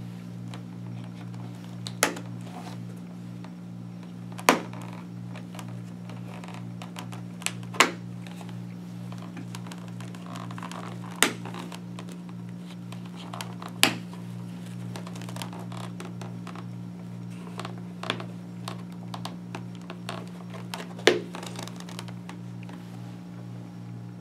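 Snap fasteners on a Schuberth C3 helmet's cheek pads popping open by hand: about seven sharp clicks a few seconds apart, over a steady low hum.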